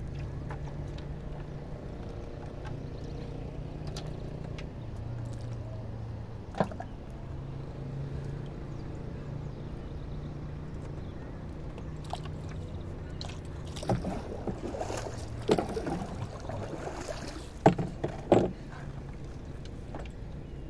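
Knocks and clatter as fishing longline gear is handled in a small wooden boat: one sharp knock about six and a half seconds in, and several louder ones in the second half, over a steady low hum.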